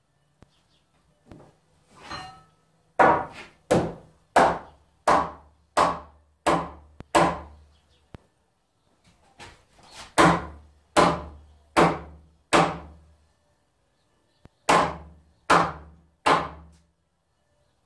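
Hammer driving nails into wood framing, in three runs of evenly spaced blows: about seven, then five, then three, each blow ringing briefly.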